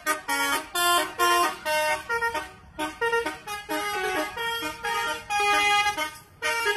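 A truck's telolet horn, a multi-tone musical air horn, playing a tune of short stepped notes and pausing briefly twice.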